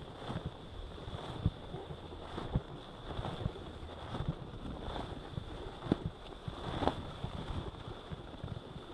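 Wind buffeting a helmet or body camera's microphone while gliding down groomed corduroy snow at about 14 mph, with the rumble of sliding on the snow and irregular light knocks, a couple of them louder past the middle.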